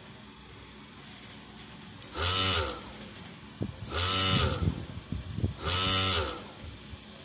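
Small electric motor of a mini bench drill press run in three short bursts, each lasting under a second, spinning up and winding down with a high whine, with small clicks between the bursts.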